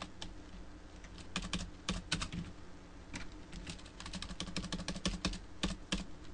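Typing on a computer keyboard: irregular runs of quick keystrokes with short pauses between them, as text is typed and erased in a flashcard entry.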